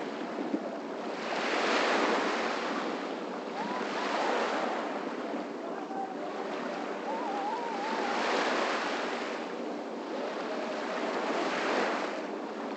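Small waves washing onto a sandy beach, the surf swelling and easing about every two to four seconds, with light wind on the microphone.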